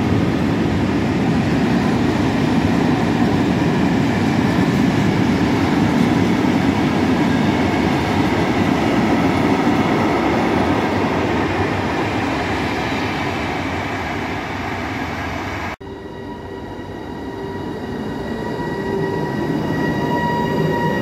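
Open Eanos freight wagons rolling past at speed, a dense rumble and rattle of wheels on rail. After a sudden cut, a Captrain E494 electric locomotive stands close by with a steady multi-tone whine from its equipment.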